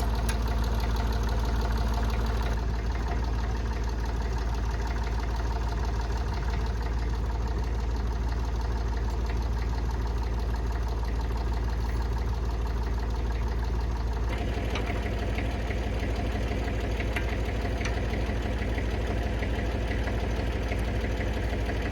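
Perkins P3 three-cylinder diesel engine of a Ford Ferguson 9N tractor running steadily with a diesel knock. About fourteen seconds in, the sound turns brighter.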